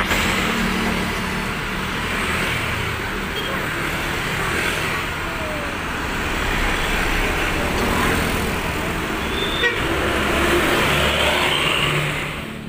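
Busy road traffic: an intercity coach and motorcycles passing close by, a steady mix of engine rumble and tyre noise, with a short horn toot or two.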